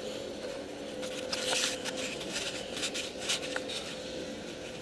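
Irregular rustling and scuffing of handling noise on a handheld camera's microphone as it is moved, over a faint steady hum.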